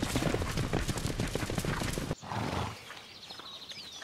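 Hooves of a herd of wild horses galloping through snow: a dense, fast drumming of hoofbeats. It cuts off suddenly about two seconds in, leaving a quieter background with a few faint high chirps.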